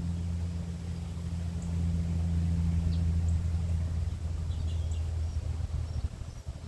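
A low steady rumble, with a bird's faint high chirp repeating about every second and a half over it.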